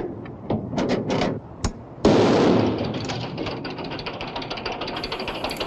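An engine being started: a few knocks and clicks, then it fires with a sudden loud burst about two seconds in and settles into a fast, steady running beat.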